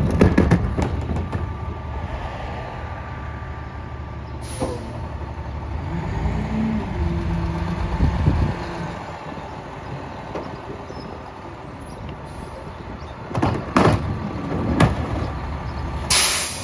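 International rear-loader garbage truck with a Heil PowerTrak body idling steadily, with a brief rising hum about halfway through. Plastic garbage carts knock and bang against the hopper as they are emptied near the start and again near the end.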